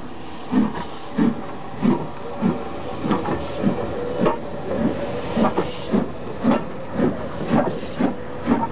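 Somerset & Dorset 7F 2-8-0 steam locomotive 53808 pulling away with a train, its exhaust beats coming evenly and quickening from about three every two seconds to about two a second. Steam hisses from the cylinders under the beats.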